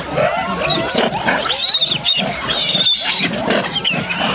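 A large troop of macaques calling as they crowd together feeding: many squeals and chattering calls overlapping, with shrill high squeals in the middle.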